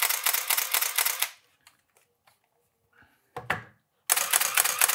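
Canon T90 film SLR's shutter and built-in motor drive firing continuously in high-speed mode, a rapid run of clicks that stops about a second in and starts again near the end. The camera is being exercised by repeated firing after its EEE / blinking-cursor shutter fault was repaired.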